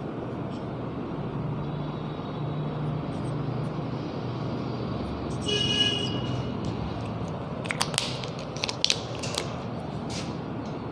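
Marker on a whiteboard: a brief squeak a little over five seconds in, then a quick cluster of taps and scratches around eight to nine seconds in, over steady background noise.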